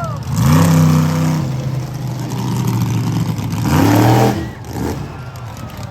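Monster truck engine revving twice, about half a second in and again around four seconds in, the pitch rising each time and settling back to a steady low run in between.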